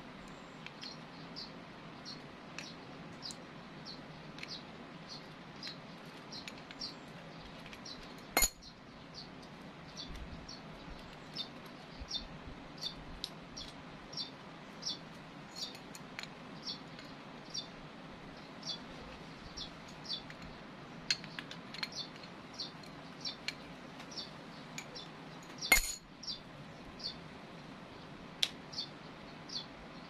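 A small animal chirping, short high chirps repeating about twice a second over a low steady hum, with two sharp clinks about seventeen seconds apart.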